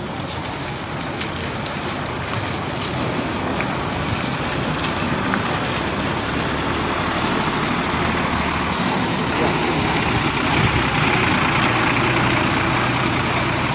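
Large intercity coach's diesel engine running as the bus drives slowly past at close range, growing louder over the last few seconds as it passes.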